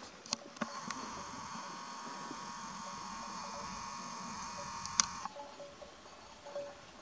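A small electric motor buzzing steadily for about four and a half seconds. It starts with a click and cuts off just after a sharp click.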